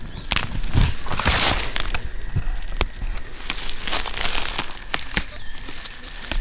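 Dry grass and dead stalks rustling and crackling close to the microphone as ostrich fern fiddleheads are picked by hand, with a few sharp snaps as the stems break off.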